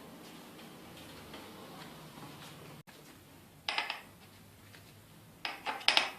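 Metal tools and parts clinking and clattering as they are handled at the workbench, in two short clusters of sharp clicks, one in the middle and a louder one near the end.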